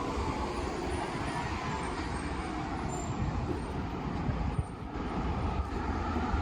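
Steady outdoor street noise of passing road traffic, with a deep rumble, briefly dropping off about four and a half seconds in.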